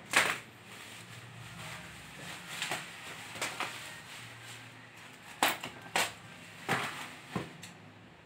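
Bubble wrap and plastic stretch film rustling and crackling as they are pulled and cut open with scissors, with a series of sharp crackles, the loudest just after the start.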